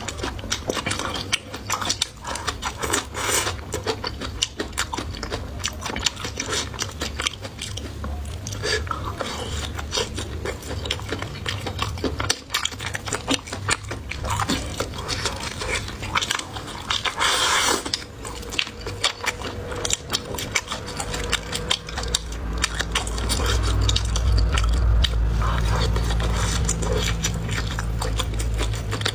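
Close-up chewing and biting of food, with dense wet mouth clicks and crunches throughout. A low steady hum comes in about two-thirds of the way through and is the loudest sound near the end.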